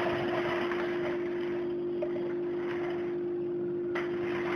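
A few light plastic clicks as the lid is fitted onto a manual vegetable chopper bowl, the last about four seconds in as it snaps shut, over a steady background hum and hiss.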